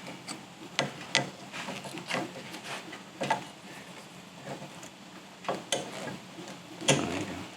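Hand tools clinking and knocking on the metal parts of a UTV's rear wheel hub and brake: scattered single clicks and knocks, with a louder clack about seven seconds in.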